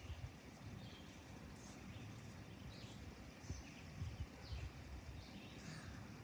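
Faint, scattered bird chirps, short high calls every second or so, over a low outdoor rumble.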